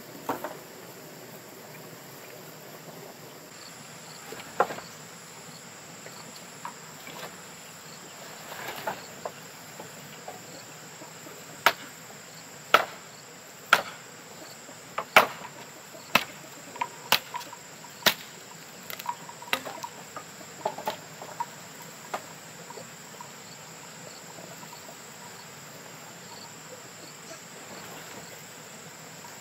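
Sharp wooden knocks as dry firewood branches are handled and struck against the pile, coming about once a second through the middle stretch. Behind them runs a steady high-pitched insect drone, like crickets.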